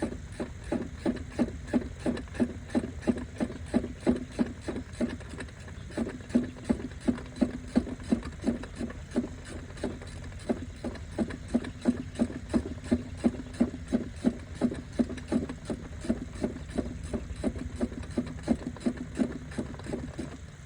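Hand ratchet wrench clicking steadily as it backs out an already loosened bolt, about three or four clicks a second.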